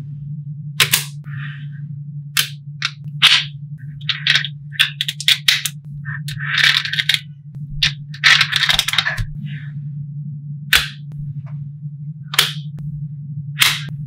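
Small magnetic balls clicking sharply as strips of them are snapped onto a model built of magnetic balls, with irregular single clicks and two longer bursts of rattling clatter around the middle. A steady low hum runs underneath.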